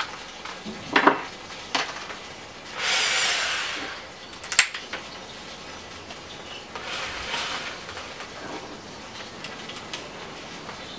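Metal clicks and clinks as a hole saw is fitted into an electric drill, with a short, hiss-like noise of about a second near the start and a fainter one past the middle.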